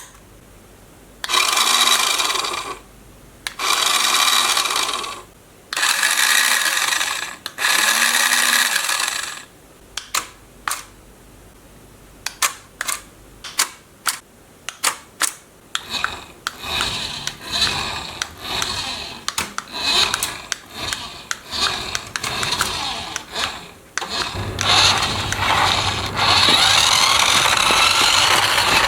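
Small electric motor of a toy RC drift car whirring in four short bursts, then clicking and scraping, then running continuously near the end.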